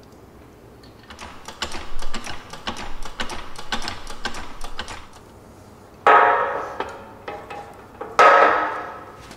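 Hand ratchet clicking in quick runs while suspension-arm bolts are driven into a steel car frame, followed by two loud metallic clanks that ring on briefly, about six and eight seconds in.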